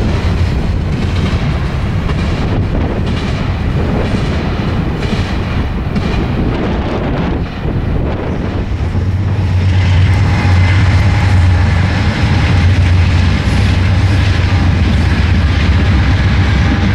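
Intermodal freight train rolling past, its wheels clicking over the rail joints. About ten seconds in, the deep drone of a pair of approaching Norfolk Southern diesel locomotives swells and takes over.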